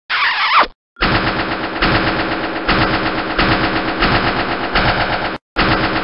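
A short whooshing sweep, then after a brief gap a long run of rapid, continuous rattling like automatic gunfire, used as an intro sound effect. It breaks off about five and a half seconds in and briefly starts again.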